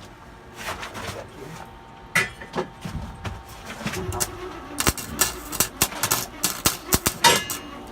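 Flux-core wire welder arc crackling and sputtering irregularly as a beginner lays a weld, starting about five seconds in after a few scattered clicks of handling.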